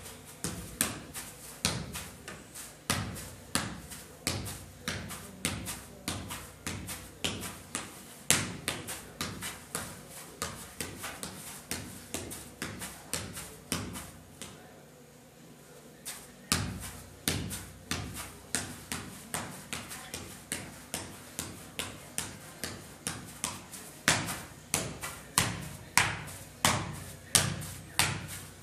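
Soccer ball being juggled: repeated sharp thuds of the ball on foot and thigh, about two touches a second. The touches stop for about two seconds midway, then resume.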